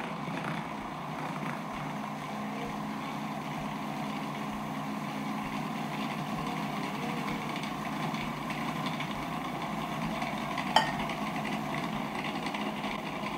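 Food processor motor running steadily while it mixes flour with warm wine and oil into a dough. A single sharp click sounds near the end.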